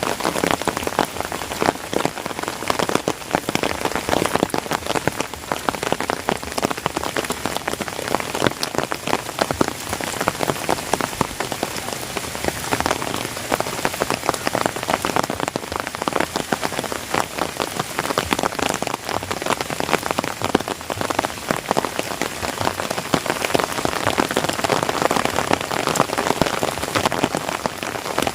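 Heavy rain falling steadily, a dense continuous hiss full of fine drop impacts on leaves and surfaces.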